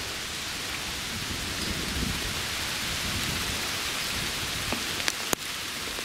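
Steady rain falling on forest leaves, with a few sharp taps near the end from big drops hitting close by.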